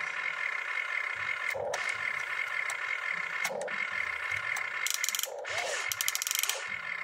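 Electric motors and gearboxes of a radio-controlled toy excavator whirring as the arm works, stopping and starting again a few times. A quick run of rattling gear clicks comes near the end.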